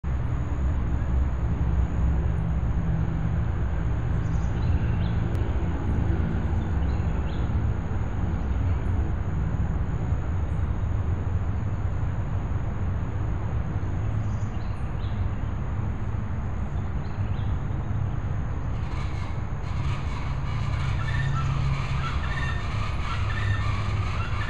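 Outdoor park ambience: a steady low rumble with a few short, high bird calls scattered through it, turning into a denser patter of higher sounds about nineteen seconds in.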